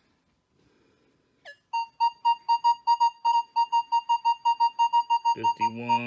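Nokta Makro Legend metal detector in Field mode with full tones, giving a single steady beep tone pulsing about six times a second as it reads a clad quarter at target ID 51. The tone starts about two seconds in, just after a brief rising chirp.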